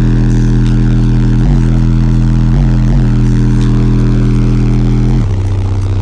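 Twelve DB Drive WDX 8-inch subwoofers playing a loud, sustained bass note with a stack of buzzing overtones, heard inside the vehicle's cab. The note dips briefly three times, then drops to a lower note about five seconds in.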